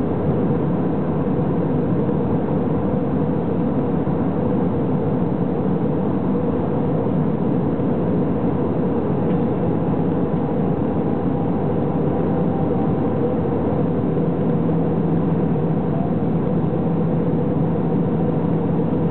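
Steady cabin noise of an Airbus A320-family airliner in flight, heard from a window seat: a constant rush of airflow with the engines' hum, a low drone becoming stronger about three-quarters of the way through.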